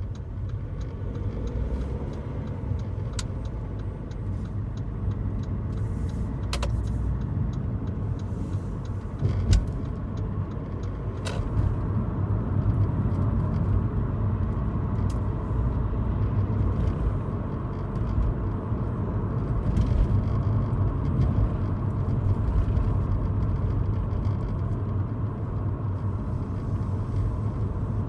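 Steady road and engine rumble inside a moving car's cabin, with a few brief sharp clicks and one louder knock about nine seconds in, the kind of intermittent rattle the owner hears from somewhere in the rear of the car.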